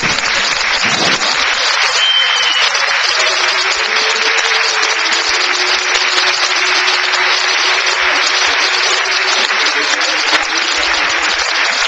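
Large audience applauding steadily, with a faint held musical note underneath and a brief high whistle-like tone about two seconds in.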